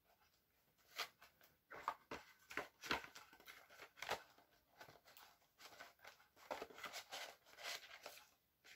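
Faint handling of a DVD case from a box set: scattered soft clicks and rustles as the case and discs are moved.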